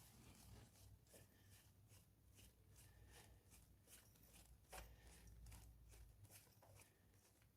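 Near silence with faint, irregular small clicks and light knocks of hand tools and parts being handled during spark plug removal, one slightly louder knock about halfway through.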